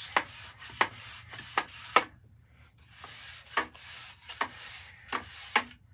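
A longboard with 200-grit adhesive sand cloth being stroked back and forth across a cast engine block's deck in a crosshatch, a rasping hiss with a sharp click at each stroke. There is a short pause about two seconds in. This is a light surfacing pass to leave a clean sealing surface for new head gaskets.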